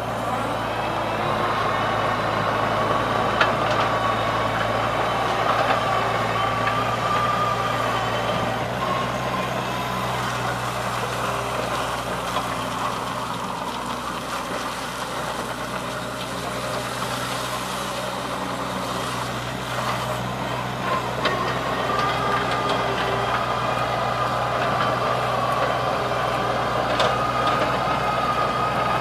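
Bobcat E26 compact excavator's diesel engine running steadily, with a high, slightly wavering whine over it for the first eight seconds or so and again from about 21 seconds on.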